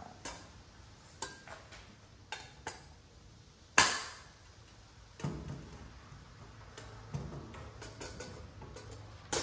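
Scattered light clicks and taps of a long-handled pop rivet tool and an aluminum butterfly vent being handled as a 3/16-inch rivet is seated in the hole, with one sharper click about four seconds in.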